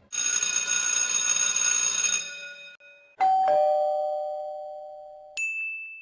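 Old telephone bell ringing for about two seconds. Then a doorbell's two-note ding-dong, high then low, dying away, and near the end a single high ding.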